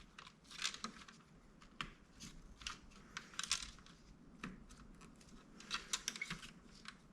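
Faint, irregular small clicks and taps from handling the laptop's internal plastic parts and cable connectors during reassembly.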